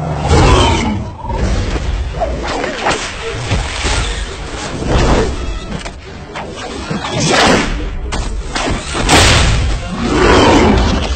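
Loud roars and growls from a large film creature, mixed with thuds, coming in repeated surges every couple of seconds.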